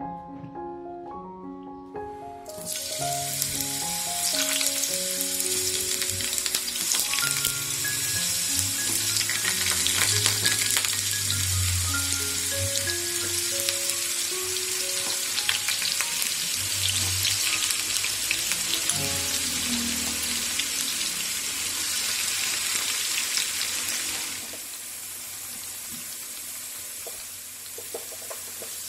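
Potato wedges deep-frying in hot oil in a pan: a loud, steady sizzle with crackles. It starts about two and a half seconds in and drops away a few seconds before the end, with background music throughout.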